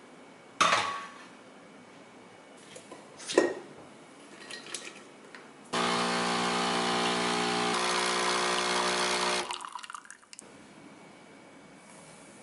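Capsule espresso machine's pump running for about four seconds while coffee pours into a ceramic mug, ending in a brief sputter. Before it, a sharp knock as the mug is set down on the drip tray and a second click from the machine.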